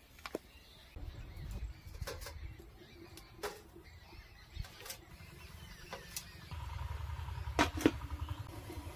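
Small steel bowls clinking as they are set down into a perforated steel steamer, with a pair of louder metal clanks near the end as the steel lid goes onto the steaming pot, over a low rumble.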